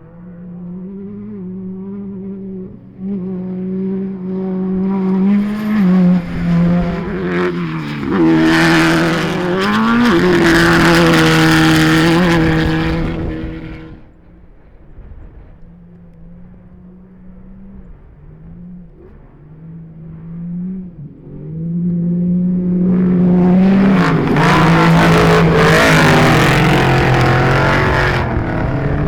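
Racing UTV (side-by-side) engines running hard as the vehicles pass. The sound builds to two loud passes, one about 8 seconds in and another from about 23 seconds in, with the engine pitch gliding and stepping, and quieter engine sound between the passes.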